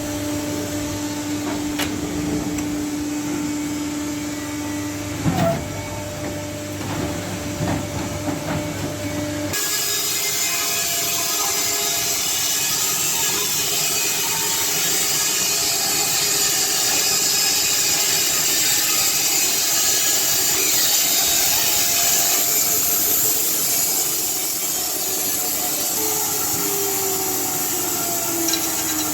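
Band sawmill running: first a steady motor hum with a few knocks, then, after an abrupt change about nine seconds in, the louder hiss of the band blade sawing through a log, with a falling tone near the end.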